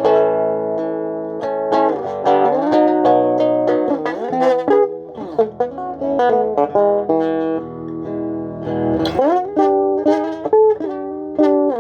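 Electric guitar playing a melodic line of picked notes, some held, with several bent or slid notes rising in pitch.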